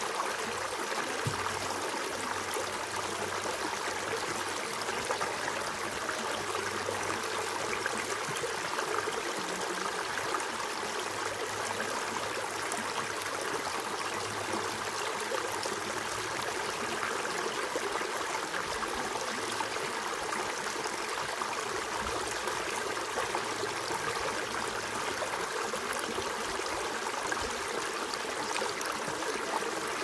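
Shallow creek running over and between rocks: a steady babble of water through a small riffle.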